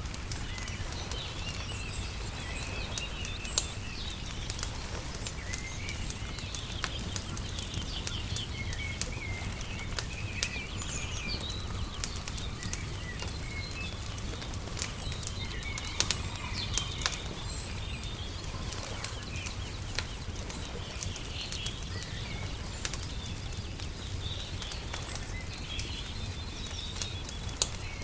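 Steady ambience of a crackling wood fire, its sharp pops and snaps scattered throughout with a few louder ones, over a low steady rumble, with small birds chirping and twittering in the background.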